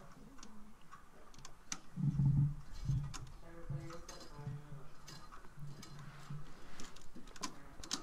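Small metallic clicks and taps of a screwdriver and wires working against a steel 4x4 junction box. A dull thump comes about two seconds in, followed by a few seconds of a faint, broken low hum.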